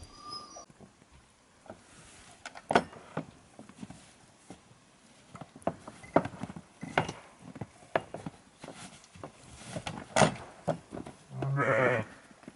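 Scattered knocks and clicks, then near the end a goat bleats once, a loud wavering call lasting under a second.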